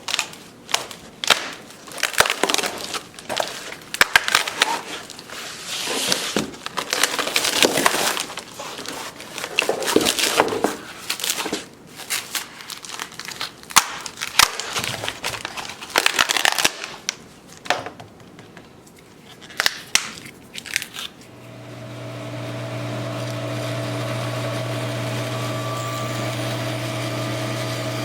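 Irregular crunching and crackling, then about three-quarters of the way through a power tool motor spins up and runs with a steady hum.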